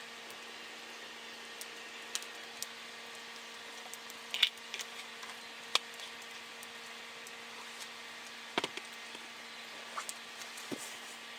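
Scattered light knocks and clicks, about seven, spread unevenly over a faint steady hum.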